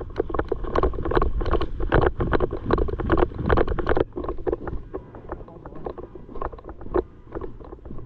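Close, irregular knocking, clicking and rustling from a walking person's gear and footsteps, heard by a camera worn on the body, with wind buffeting the microphone. The knocks come thick and fast for about the first four seconds, then thin out.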